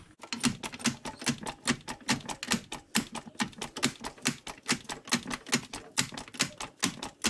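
Hydraulic trolley jack being pumped, raising the rear axle: a rapid, even run of clicks, about five a second.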